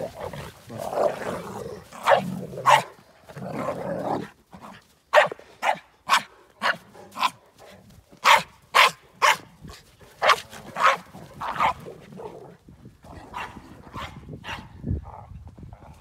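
Dogs barking: a couple of barks early on, then a rapid run of sharp barks, about two to three a second, from about five seconds in, fading to a few fainter barks near the end.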